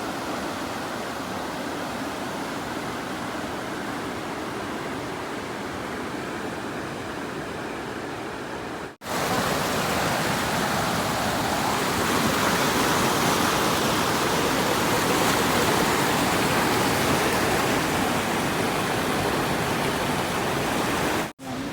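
Flood-swollen river water rushing in a steady, even hiss. It cuts out sharply about nine seconds in and comes back louder, then cuts out again near the end.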